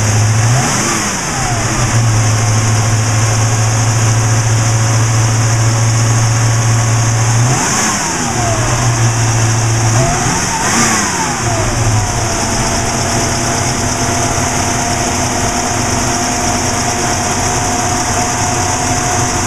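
1971 Ford Mustang Mach 1's 351 Cleveland two-barrel V8 idling steadily, its throttle blipped three times: briefly about a second in, again near eight seconds, and a little longer around eleven seconds, each rev rising and falling straight back to idle.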